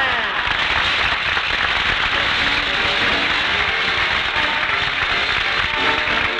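A studio audience applauding at the end of a live radio comedy show, with closing theme music coming in underneath and growing clearer near the end.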